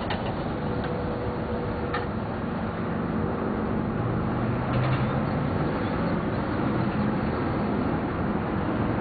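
Steady road traffic noise, with a vehicle engine's low hum growing louder about four to five seconds in.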